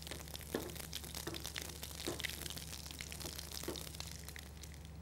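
Cumin, mustard and fenugreek seeds and dried red chillies frying in hot oil in a shallow pan: a steady, fairly quiet sizzle with many small crackles and a few slightly louder pops. This is the spice tempering (baghar) being cooked until the spices blacken.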